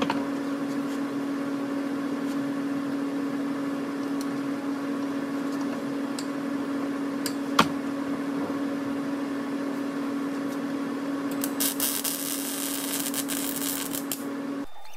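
A steady electrical hum with one sharp click about halfway through, then an electric welding arc crackling for about three seconds near the end as steel tubing is welded. The hum and the arc stop together just before the end.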